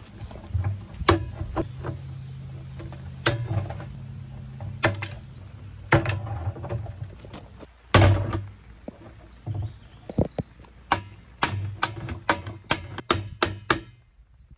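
Hammer striking the ends of brass bolts on a plastic barrel hatch, with a hatchet head held behind them as a backing block. A few single knocks come first, then from about halfway a steady run of sharp taps, about two a second.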